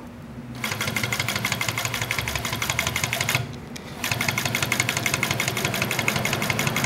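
Atlas AT-9910D post-bed industrial sewing machine with top and bottom roller feet stitching, a rapid, even clatter of needle strokes. It starts about half a second in, stops briefly a little past halfway, then runs on again.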